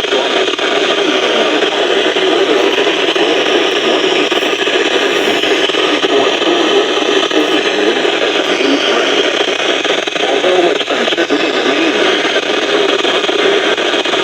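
Steady radio static from a receiver on a weak or empty channel: a loud, even hiss with crackle and no clear programme audio.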